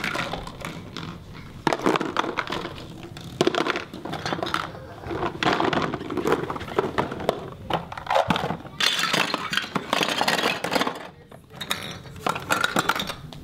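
Plastic play-food pieces clattering and knocking as they are picked up off a wooden ledge and dropped into a plastic shopping basket, in quick runs of clicks and knocks.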